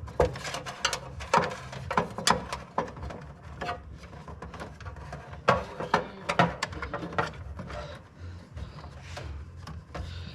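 Irregular clicks, knocks and scraping of hands and tools working a panel and its stuck screws loose, over a steady low hum.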